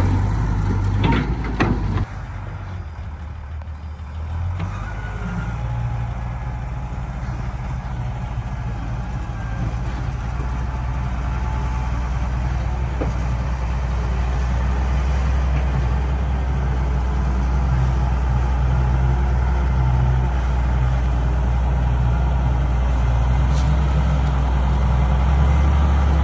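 A Doosan wheeled excavator's diesel engine runs steadily as the machine works. A few sharp knocks and scrapes in the first two seconds fit the bucket working the stony ground. The engine note steps down at about two seconds and builds again after about four.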